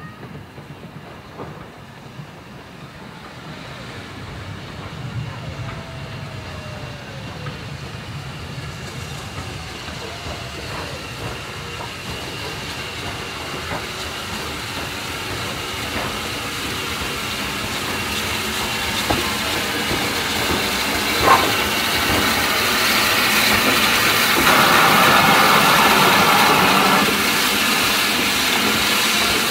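LSWR S15 4-6-0 steam locomotive No. 506 and its train drawing steadily closer, the rumble of wheels and rail noise growing louder. There is a single sharp click about two-thirds through, and a spell of steam hiss near the end as the engine comes alongside.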